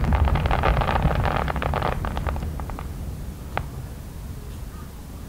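Aerial fireworks: a dense crackling of popping stars over a low rumble, thinning out after about two seconds, then a single last pop about three and a half seconds in.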